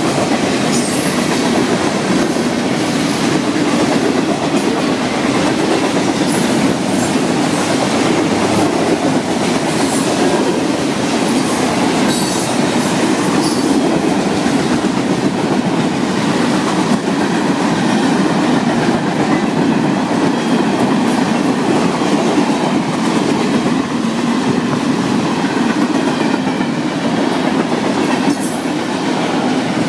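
Freight train boxcars rolling past close by: a steady, loud rumble and clatter of steel wheels on the rails, with brief high wheel squeals now and then.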